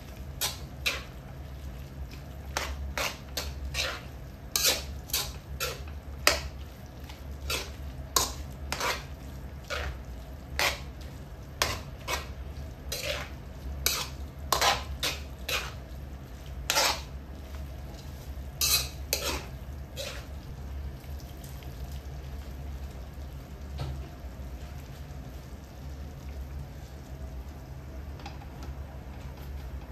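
Metal spoon scraping and clanking against a metal wok as minced meat is stirred, irregular clinks every half second or so, stopping about twenty seconds in. A steady low hum runs underneath.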